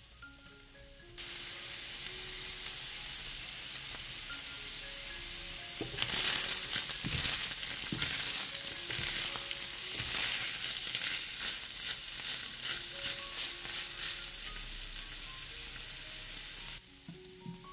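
Food frying in oil in a pan: a steady sizzle that starts about a second in and cuts off suddenly near the end. Through the middle it is joined by stirring and scraping in the pan.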